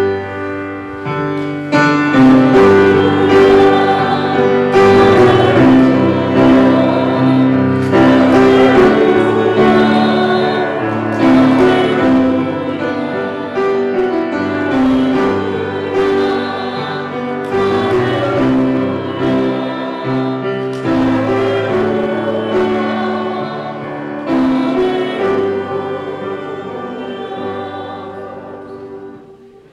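Grand piano playing slow, full chords as the postlude at the end of a church service, dying away near the end.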